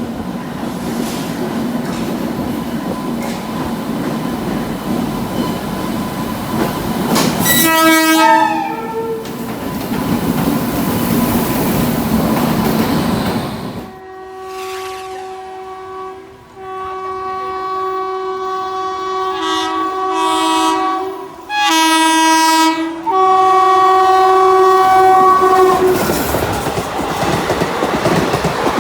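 Indian Railways WAP-4 electric locomotive's twin-tone horn: a short honk about eight seconds in, then a run of loud blasts alternating between two pitches from about halfway to near the end. Rumbling train noise with wheel clatter before and after the horn.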